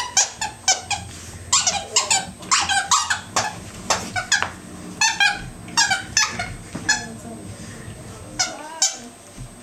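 A plush dog toy's squeaker squeaking over and over as an American bulldog puppy chews and tugs at it; the squeaks come in quick runs of short, high squeals and stop shortly before the end.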